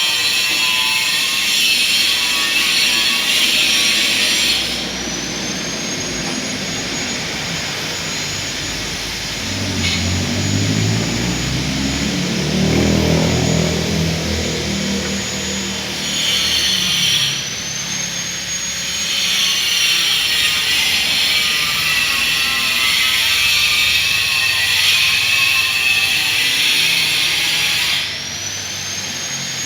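Electric power-tool motor running with a steady high-pitched whine. Its pitch and loudness sag briefly a few times and then recover, as when the tool is eased off and back on. A lower engine-like hum swells and fades about ten to fourteen seconds in.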